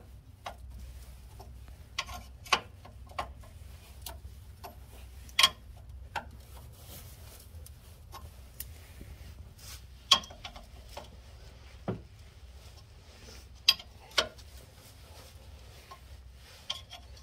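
Wrench working the nut off a sway bar end link: scattered, irregular metallic clicks and taps as the wrench is turned and repositioned, the loudest about five and ten seconds in, over a faint low hum.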